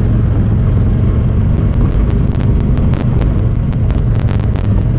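Honda Talon 1000R side-by-side's parallel-twin engine running under way, a loud steady low rumble. From about a second and a half in, rapid, irregular sharp clicks ride over it, a rattle that comes from the camera rather than the vehicle.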